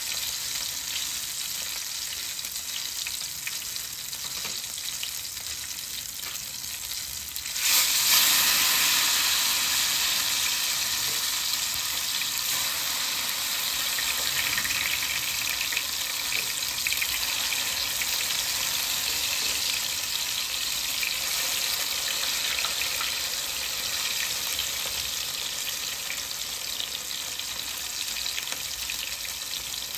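Eggplant omelette frying in oil in a pan, a steady sizzle. About eight seconds in the sizzle jumps suddenly louder and brighter, then slowly settles back.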